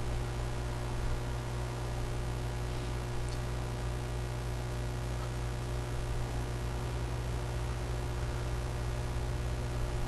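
Steady low electrical hum over an even hiss, unchanging throughout, coming from the recording setup rather than any event in the scene.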